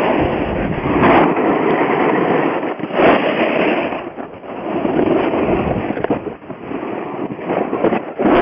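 Wind buffeting the microphone in loud, uneven gusts, with a crackly rumble that eases off briefly a few times.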